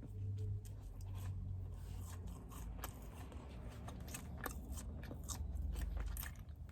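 Close-miked chewing and biting of a melon sugar mochi donut, with many small, sharp, irregular mouth clicks over a steady low hum.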